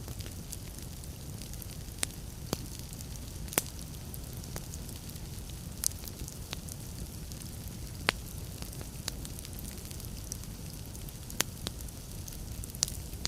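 Wood fire in a fireplace crackling: a steady low rumble of burning logs with sharp, irregular pops and snaps every second or two.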